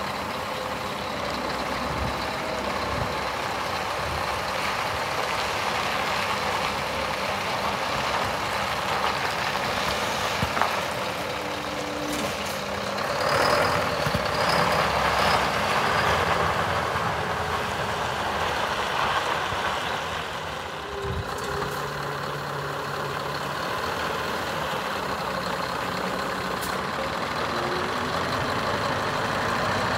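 Scania R560 hooklift truck's V8 diesel running as the truck manoeuvres slowly on gravel. It grows louder about halfway through as the truck comes close, and there are a few brief hisses of air.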